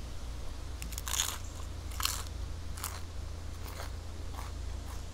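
Crunchy guacamole chips being chewed close to the microphone, a crisp crunch about once a second, over a steady low hum.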